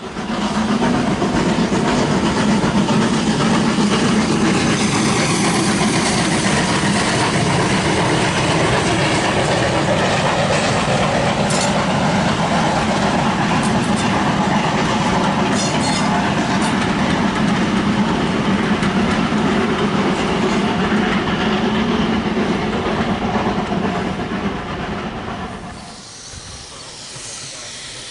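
Steam-hauled passenger train of BR coaches passing close by: a loud, steady noise of the wheels running on the rails, which drops away sharply near the end.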